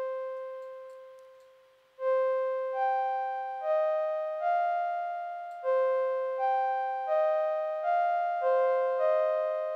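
Alchemy software synthesizer playing with a long-attack, long-release amp envelope, a basic synth string sound. One note fades slowly away over the first two seconds. Then, from about two seconds in, a short rising-and-falling melody of overlapping notes follows, each fading slowly into the next.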